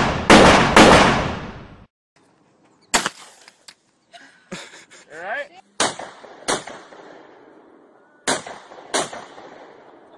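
Gunshots: three loud shots in quick succession at the start, ringing out for over a second. After a short silence, a rifle fires single shots about three seconds in, then twice around six seconds and twice again around eight to nine seconds.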